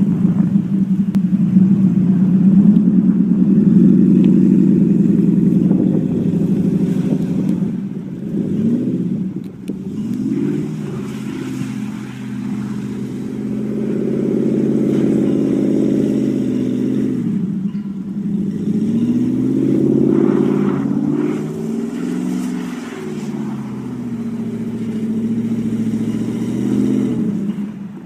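Supercharged 5.4-litre V8 of a 2000 Ford SVT Lightning pickup revving up and easing off again and again as its rear wheels spin through donuts in snow. It is loudest in the first several seconds, then the revs swell and fall back a few more times.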